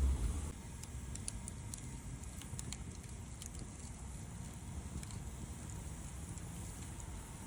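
Wood campfire burning with sparse crackles and pops over a low steady rumble; a heavier low rumble at the start dies away about half a second in.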